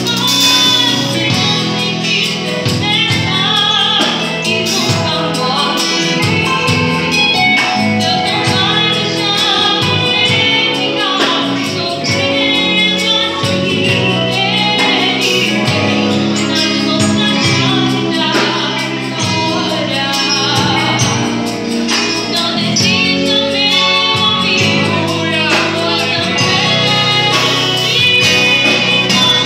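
Live gospel worship song: a woman singing lead over a Roland Juno-D keyboard and percussion, all amplified through the church PA.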